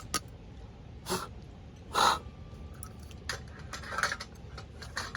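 A crow cawing several times, about a second apart, with the loudest caw about two seconds in.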